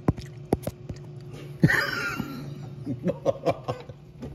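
Three quick sharp knocks in the first second, then a short high vocal burst about a second and a half in, followed by a few low mumbled syllables, over a steady low hum.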